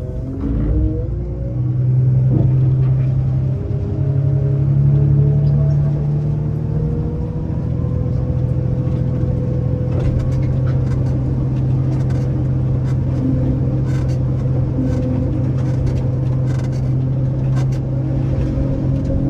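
Heavy farm machine's diesel engine revving up in the first couple of seconds, then running steadily under load, with scattered rattles and clicks.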